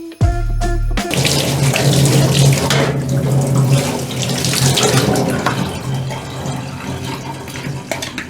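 Water running steadily with a rushing sound and a low hum beneath it, easing off somewhat near the end. A short stretch of background music ends about a second in.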